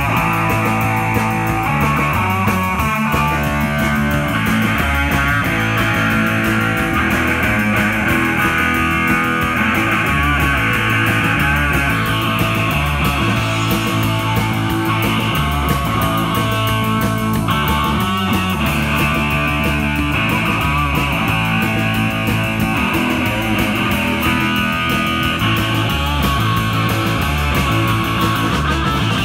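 Rock band playing live: electric guitar, electric bass and a drum kit, loud and steady throughout.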